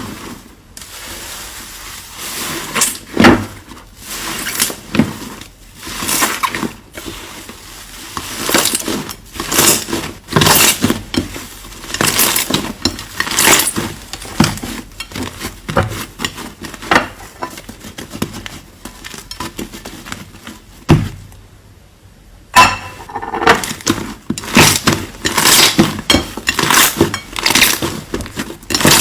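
Slime being squeezed and pressed by hand, giving an irregular run of sharp clicks and pops, with a short lull about three quarters of the way through.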